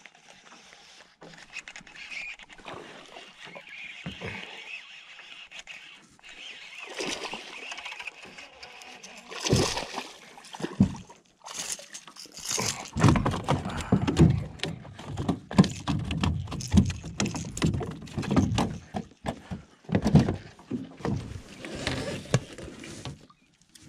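A hooked largemouth bass splashing at the surface and being landed into an aluminium boat, where it thrashes. Most of the sound falls in the second half: a dense run of sharp splashes and knocks, with a second burst near the end.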